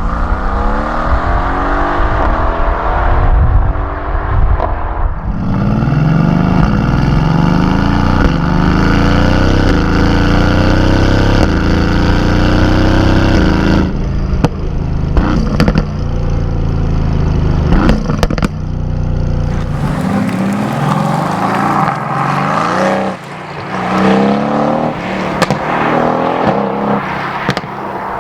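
Mercedes-AMG GT's twin-turbo V8 exhaust under hard acceleration, its pitch climbing through the gears with a break at each shift. Sharp pops and crackles come between about 14 and 19 seconds. After that it revs up in several shorter rising sweeps with less bass.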